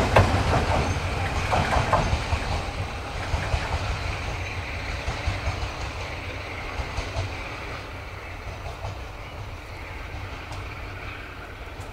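Class 47 diesel locomotive's Sulzer twelve-cylinder engine working hard as it pulls a train away into the distance, its low drone and the rattle of the wheels fading steadily.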